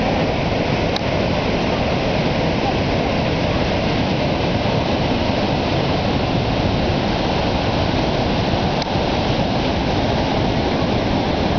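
Steady, dense rush of water from Niagara's Horseshoe Falls, a loud even wash of sound with no breaks.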